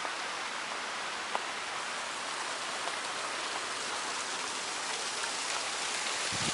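A steady, even hiss of water, with a faint tick or two.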